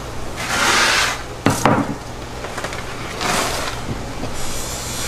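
A whole bluefin tuna being slid and turned over on a cutting table: two rasping scrapes and a sharp, heavy thump about a second and a half in.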